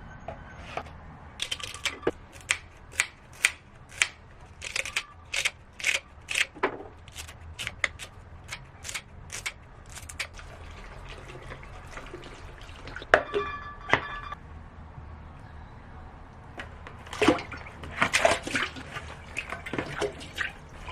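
Kitchen handling sounds: a run of irregular sharp clicks and knocks, a brief ringing clink about thirteen seconds in, and a burst of clatter near the end.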